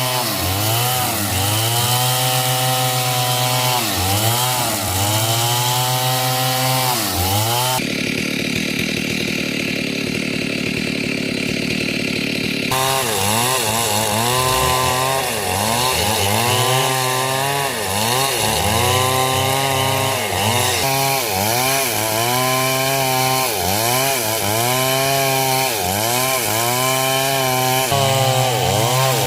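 Stihl chainsaw at high revs cutting into hardwood coconut timber. The engine pitch dips and recovers every second or two as the chain bogs under load. For about five seconds, starting about eight seconds in, the engine tone gives way to a rougher, even noise before the dipping pitch returns.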